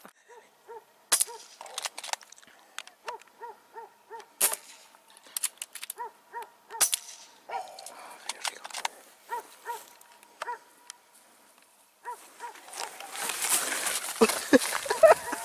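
An animal's short, pitched calls repeating irregularly, two or three a second, with a few sharp clicks among them. About twelve seconds in, rustling and footsteps through dry grass and brush take over.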